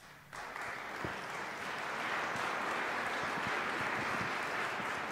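Congregation applauding, the clapping starting just after the start and then holding steady.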